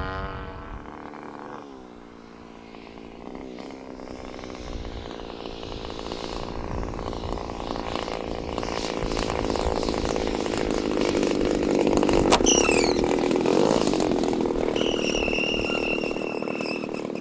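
The twin-cylinder DLE-40 gasoline engine of an RC Cessna 182 model running. Its note drops about two seconds in, then it grows steadily louder as the plane comes in to land, loudest about twelve seconds in, where a single sharp click is heard. The pilot says the engine is not quite tuned yet.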